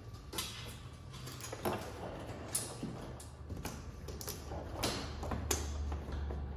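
Handling noise of a frunk emergency-release cable being fed by hand through an opening in a car's plastic front bumper: scattered light clicks and scrapes at irregular intervals, over a low steady hum.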